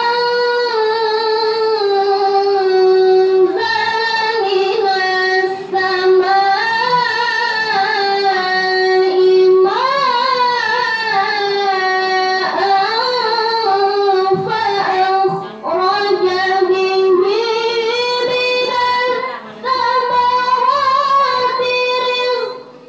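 A girl reciting the Qur'an in the melodic, sung style into a hand-held microphone, holding long notes with wavering ornaments. Her line breaks for short breaths three times: about five and a half seconds in, around fifteen and a half seconds, and near twenty.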